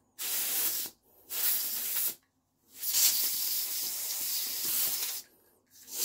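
Can of compressed air hissing through its straw nozzle in three bursts, the third the longest at about two seconds, with a fourth starting near the end; the air is blowing oil and production grit out of a slip joint knife's pivot.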